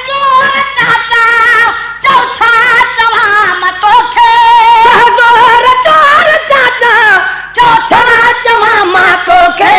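Sindhi maulood (devotional song) sung by men's voices: long, drawn-out notes with a wavering vibrato and sliding ornaments, with no clear words.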